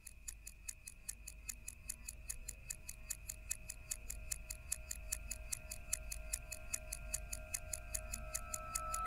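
Quiet musical intro: an even mechanical-sounding ticking, about five ticks a second, over two held drone tones, slowly growing louder.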